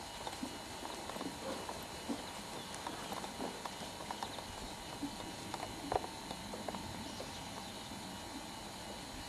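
Hoofbeats of a ridden horse moving over an arena surface, a run of uneven soft clicks with one sharper knock about six seconds in.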